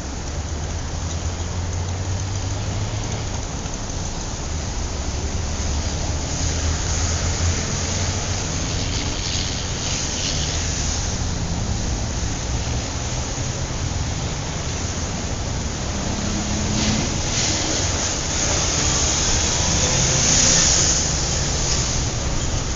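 City street traffic: a steady low rumble of engines with cars passing, their tyre hiss swelling and fading twice, louder on the second pass near the end.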